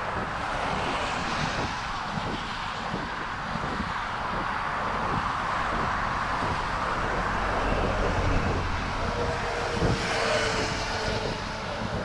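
Road traffic with vehicles swelling past twice, the second carrying a brief whine, over a runner's regular footfalls.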